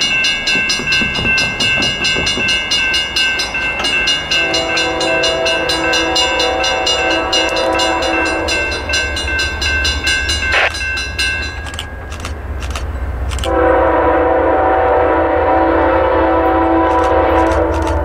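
A railroad crossing bell rings rapidly and stops about two-thirds of the way through. An approaching Norfolk Southern freight locomotive sounds its multi-note air horn in a long blast about four seconds in and a louder long blast near the end, over the growing low rumble of the locomotive.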